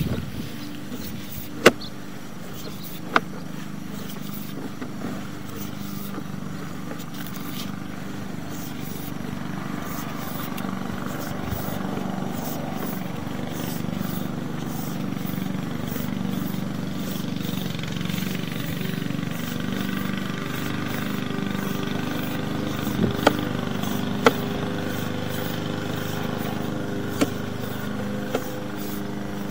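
A steady motor hum with a low pitched drone, growing a little louder partway through, with a few sharp clicks scattered through it.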